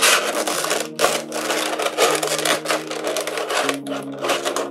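Clear plastic blister tray crinkling and crackling under the hands as it is pressed and handled, a dense run of scratchy crackles.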